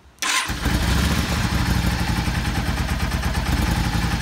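Yamaha V-Star 650's air-cooled V-twin cold-started with the choke pulled out: it fires up about a quarter second in and runs at a steady idle.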